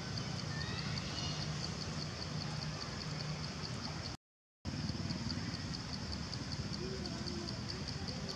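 Steady outdoor background noise with a high, even buzz over a low hum; the sound cuts out completely for about half a second a little past the middle, then resumes.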